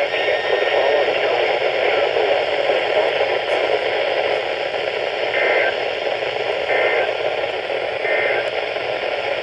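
Steady radio static: loud hiss from a weather radio receiver with no clear signal coming through. In the second half, faint short tones break through three times, about a second and a half apart.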